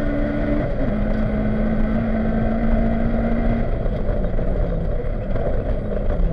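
Honda Civic rally car's engine heard from inside the cockpit, running hard under load over loud road and tyre noise. Its pitch drops sharply about a second in, a gear change, then holds steady before sinking away in the last couple of seconds as the engine eases off.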